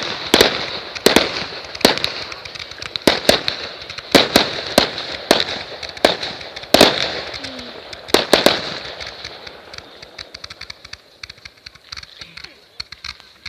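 Fireworks going off: a rapid, irregular series of sharp bangs with crackling between them. The big bangs stop about eight seconds in, leaving fainter pops and crackle that die away.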